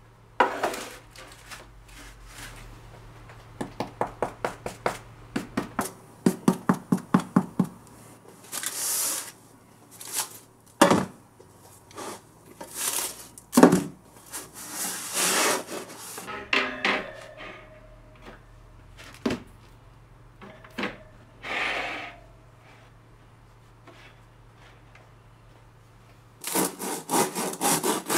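Crusty baked bread being handled on a wooden surface: crinkling parchment paper, with the hard crust scraping and rubbing, including runs of quick rhythmic scraping strokes at about four a second. Near the end a bread knife saws back and forth through the crisp crust in fast strokes.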